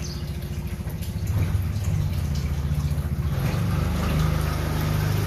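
A low, steady machine hum with a fast flutter, its pitch stepping up a little about two-thirds of the way through.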